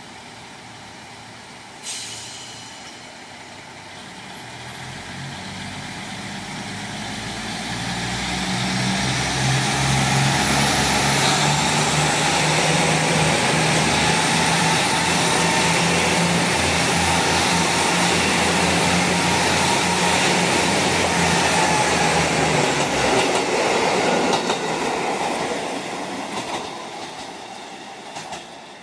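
JR Central KiHa 85 series diesel multiple unit pulling away along the platform: its diesel engines run up in pitch as it gathers speed and its wheels run over the rails, loudest as the cars go past, then fading as the train leaves. A brief sharp sound comes about two seconds in.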